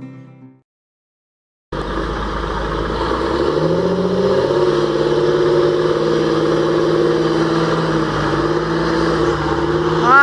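Acoustic guitar music fades out, and after a second of silence a large John Deere tractor's diesel engine is heard running steadily under load as it tows a semi truck, rising a little in pitch a couple of seconds after it comes in.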